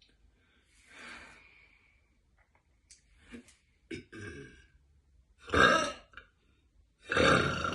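A woman's loud burps: a short one about five and a half seconds in, then a longer, drawn-out one starting near the end, after some quieter breathy sounds.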